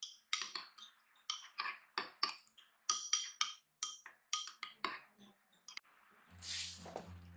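Metal utensil clinking and tapping against cookware in a run of sharp, irregular clinks, about two or three a second. Background music comes in near the end.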